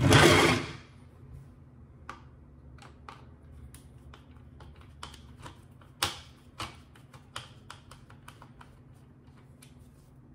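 Plastic parts of a Kenner Ecto-1 toy car handled with a short, loud scuffing clatter at the start. Then scattered light clicks and ticks follow as a screwdriver backs screws out of the toy's plastic body and window frame.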